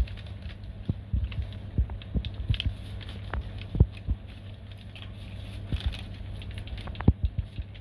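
A thin plastic bag crinkling and fruit knocking softly as the fruit is picked by hand into the bag, in irregular light clicks, over a steady low hum.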